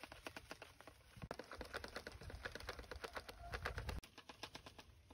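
Rapid, irregular clicking and rustling of leaves and twigs as a long wooden pole is pushed about among tree branches, over a low rumble that cuts off about four seconds in.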